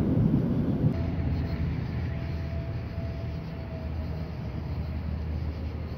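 Low rumble of thunder slowly dying away after a lightning strike. A faint thin steady tone sits over it for a few seconds from about a second in.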